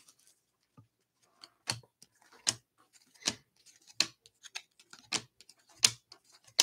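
A stack of Bowman baseball trading cards being thumbed through one at a time. Each card slid off the stack gives a short click, about one a second.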